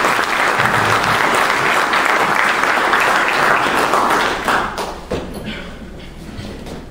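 Audience applauding, dying away about four and a half seconds in and leaving a few scattered knocks.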